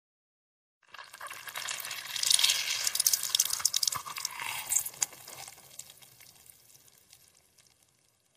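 Half a grapefruit squeezed in a hand: a wet, crackling squelch of the pulp cells bursting and juice running out. It starts about a second in, is loudest in the middle and fades out toward the end.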